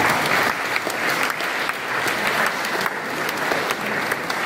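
Audience applauding: many hands clapping at once.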